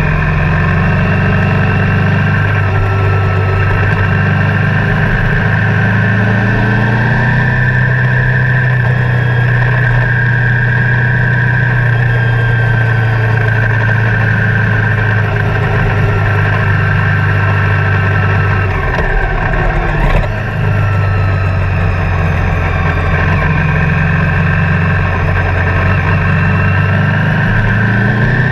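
Motus 1650 cc Baby Block V4 motorcycle engine running on steady throttle at road speed. Its pitch climbs about seven seconds in, and it eases off briefly and picks up again about twenty seconds in.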